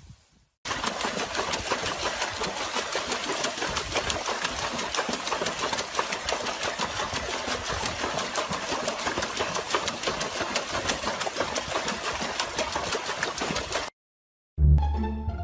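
Continuous, rapid splashing of water as a dog paws and thrashes in a plastic tub. It stops abruptly near the end, and plucked-string music starts.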